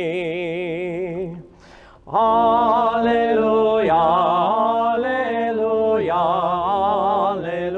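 A solo male voice singing the Gospel acclamation. A held note with wide vibrato ends about a second and a half in. After a brief pause, 'Alleluia, alleluia' is sung with the same vibrato over steady held accompanying notes.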